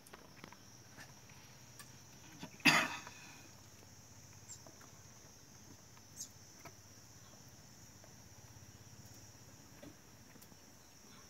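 A hedgehog's claws ticking faintly and now and then on the floor of a plastic tub as it walks. About three seconds in there is one sudden loud scraping burst that dies away within half a second.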